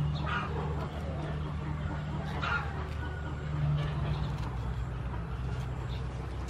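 Chickens clucking now and then, twice clearly, over a steady low hum, with faint knife cuts through pineapple rind.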